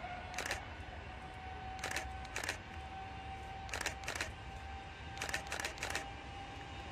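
Distant Boeing 777-300ER's GE90 turbofan engines whining steadily during the landing rollout, over a low rumble. Sharp short clicks come through, singly, in pairs and in a run of three.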